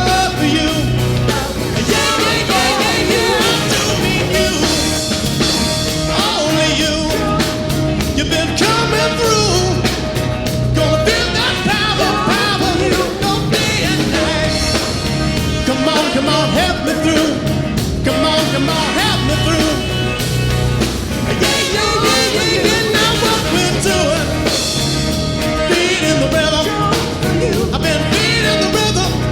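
Live rock and soul band playing with a steady beat, with singing over drums, bass, guitars, keys and horns.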